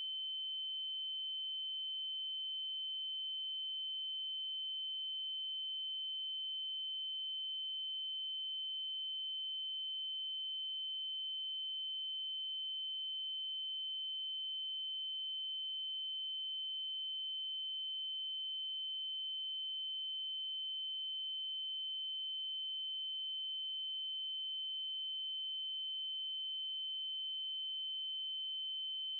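Steady synthesized 3072 Hz triangle-wave tone, a single unchanging high-pitched pitch with faint overtones.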